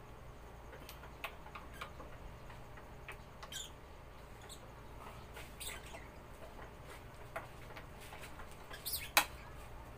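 Ratchet wrench clicking in short, scattered bursts as the bolts of a viscous fan clutch are tightened after its silicone oil top-up, with one sharper click about nine seconds in.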